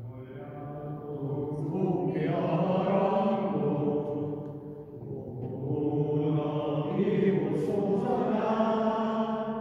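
Slow liturgical chanting at a Catholic Mass: voices holding long sung notes in phrases, with a short breath about halfway through.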